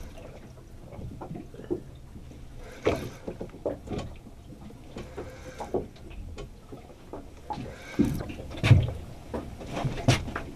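Irregular knocks, rattles and rustles of a rod and reel being wound in aboard a small boat, with heavier thumps near the end as a small fish is lifted out of the water.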